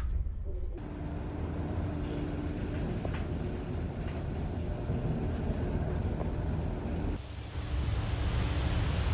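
Steady low rumble of a large passenger ferry's engines and hull under way, with an abrupt change to a fresh stretch of rumble about seven seconds in.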